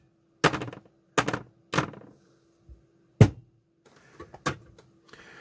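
Five sharp hand claps, unevenly spaced, each with a short room echo, clapped to toggle a sound-activated clap-switch circuit on and off.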